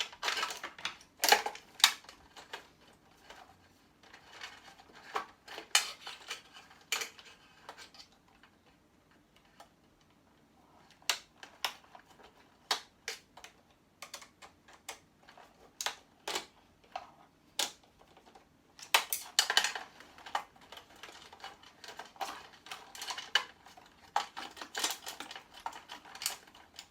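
Hands taking apart electronic scrap: irregular clicks, knocks and rattles of small plastic and metal parts and cables being worked loose, with a quieter pause about eight seconds in.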